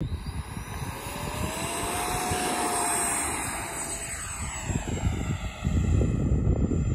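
Electric ducted fan of an FMS F-16 80 mm EDF model jet whining on its takeoff run, the pitch rising over the first two seconds, loudest as it lifts off and fading as it climbs away. Gusts of wind rumble on the microphone near the end.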